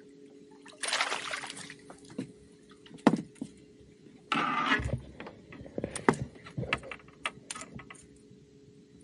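A small red drum splashing at the water's surface as it is lifted out, then knocks and thumps on the boat deck as the fish flops and is handled, with a loud knock about three seconds in and a scatter of lighter clicks and taps near the end.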